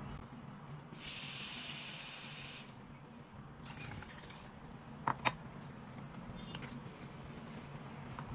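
Water poured from a pan into a stainless steel pot of shredded zucchini and carrots, splashing in two spells. Two sharp knocks about five seconds in.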